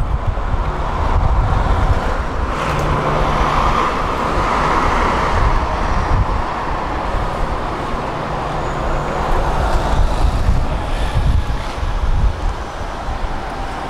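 Tram running along its rails: a steady rumble of wheels and running gear, with a low hum that comes in twice.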